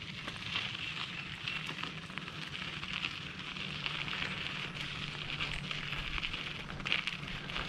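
Bicycle riding along a campground road: a steady crackle of the tyres over the road surface, full of small ticks, over a low rumble.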